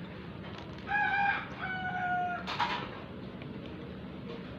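A rooster crowing once: a short first part and then a long held note, about a second and a half in all. A single sharp click follows just after it.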